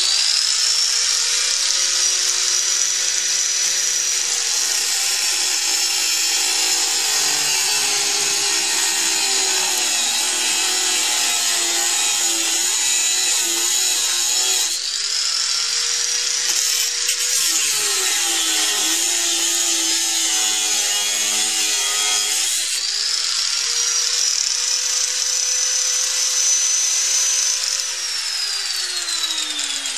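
Angle grinder with a homemade cut-down cutting disc, whining at full speed, then grinding into a steel angle twice for several seconds each time, its pitch dropping under load. The disc is being dressed against the angle to true its crumbled edge and stop its wobble. Near the end the grinder is switched off and its whine falls away as it winds down.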